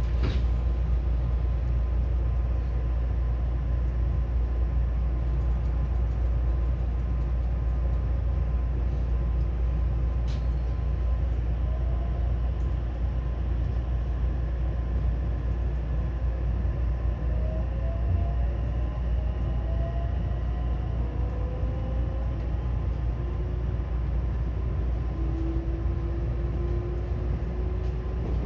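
JR West 225 series and 223 series electric train running with a steady low rumble. From about halfway through, a faint motor whine slowly rises in pitch as the train picks up speed.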